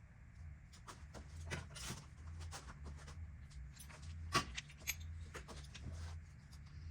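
Scattered clicks and light metallic knocks of hand tools and engine parts being handled, over a steady low hum. The sharpest knock comes a little past the middle.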